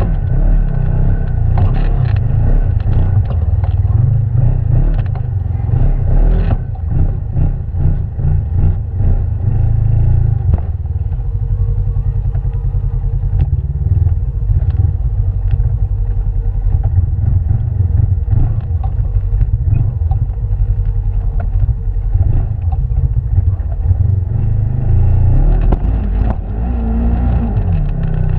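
Side-by-side UTV engine running at low speed as it crawls over a rocky dirt trail, with frequent knocks and rattles from the machine jolting over the rocks, busiest in the first third.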